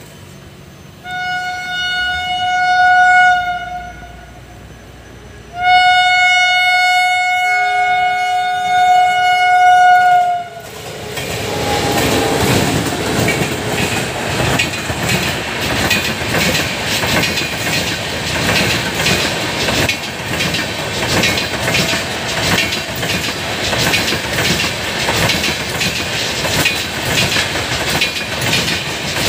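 Santragachi–Jabalpur Humsafar Express sounding two long horn blasts as it approaches, the second longer and dropping to a lower tone partway through. About ten seconds in the train reaches the microphone and its passenger coaches pass at speed, with a steady rumble and the regular clickety-clack of wheels over rail joints.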